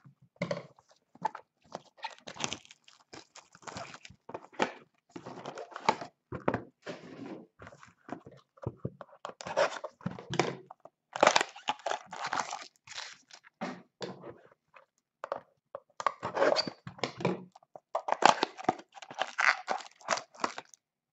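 A shrink-wrapped box of trading cards being opened and handled with gloved hands: plastic wrap crinkling and tearing, with cardboard rustling and tapping in irregular bursts.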